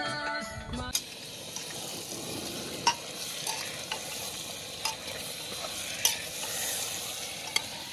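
Chicken pieces sizzling as they dry-roast, with no water, in an open pressure cooker, stirred with a steel slotted ladle that clinks against the pot every second or so. A folk song with singing plays for about the first second, then cuts off.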